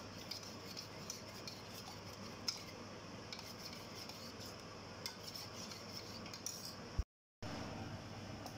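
Metal spoon stirring a thick custard-powder mixture in a stainless steel cup, scraping and clinking against the sides in small irregular ticks over a steady hiss. The stirring stops abruptly about seven seconds in with a louder click and a brief silence.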